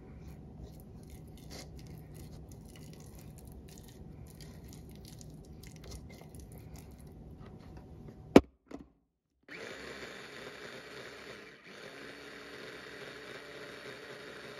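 Quiet kitchen handling sounds over a low steady hum, with small scattered clicks and one sharp knock about eight seconds in; after a brief break a steadier hiss follows.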